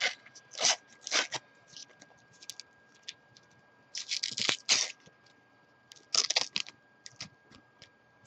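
A foil Panini FIFA 365 sticker packet being torn open by hand: short bursts of crinkling and ripping wrapper with small crackles between, the biggest clusters about four seconds in and again about six seconds in.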